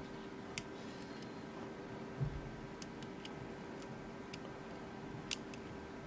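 Faint, irregular metallic clicks of a dimple pick working the pin-in-pin pins of a Mul-T-Lock C-13 padlock under tension, over a steady low hum, with one soft low thump about two seconds in.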